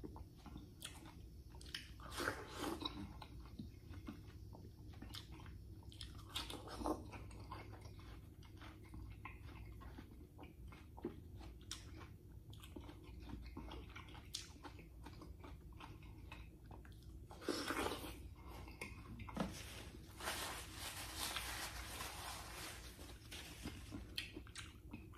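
A person biting into and chewing watermelon wedges, close to the microphone: separate bites and chews, with a longer stretch of chewing about three-quarters of the way through.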